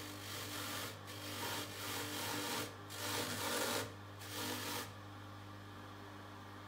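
Bristle brush held against the spinning soft buffing wheel of a bench polishing machine, rasping in four passes with short breaks, over the steady hum of the machine's motor. The rasping stops a little before the end, leaving only the motor hum.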